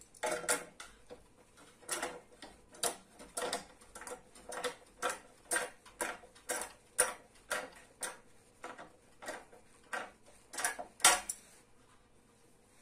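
Wrench turning a nut down a threaded rod: a regular run of metal clicks, about two a second, in short strokes. The loudest click comes near the end, and the clicking stops shortly before the end.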